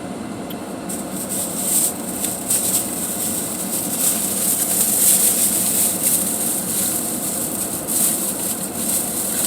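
Plastic packaging and bags rustling and crinkling as grocery items are handled, over a steady low hum.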